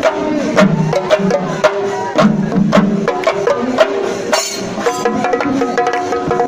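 Singari melam ensemble playing: chenda drums beaten with sticks in a fast, driving rhythm, with hand cymbals clashing along. A steady ringing tone joins near the end.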